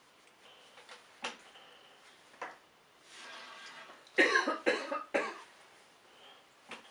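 A person coughing three times in quick succession, about four seconds in, after a couple of faint clicks.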